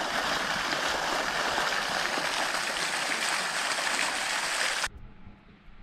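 Fountain jets splashing into a basin: a steady rush of falling water that cuts off suddenly about five seconds in.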